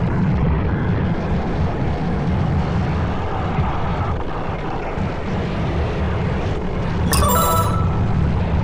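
Wind rushing over the microphone and skate wheels rumbling on asphalt during a fast prone downhill run, a steady low noise. A brief electronic tone sounds about seven seconds in.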